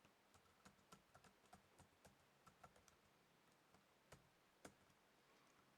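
Faint typing on a computer keyboard: a quick, irregular run of key clicks that thins out after about four and a half seconds.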